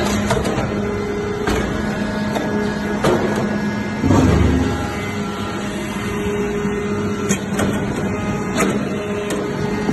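Hydraulic metal-chip briquetting press running: a steady hum from its hydraulic power unit with scattered clicks and knocks, and a heavy thump about four seconds in.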